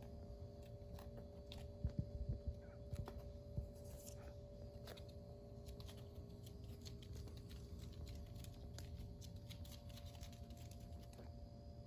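Faint snoring of a sleeping black mame shiba puppy, over a steady low hum, with a few soft knocks and clicks about two to four seconds in.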